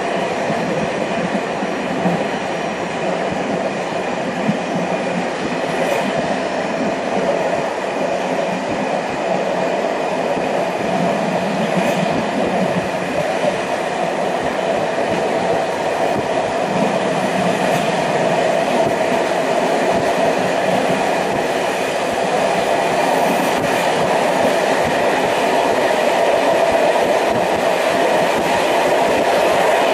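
Passenger train running, heard from inside the carriage: a steady rumble of wheels on the rails with an occasional faint click, slowly getting louder toward the end.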